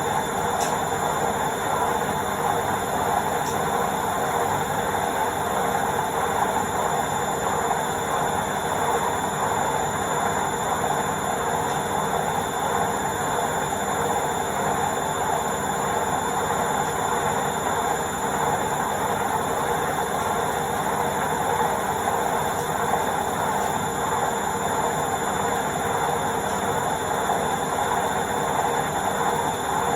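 Washing machine spinning its drum at top speed, 1200 RPM, in the spin cycle: a steady, even whirring rush with a faint high whine, unchanging throughout.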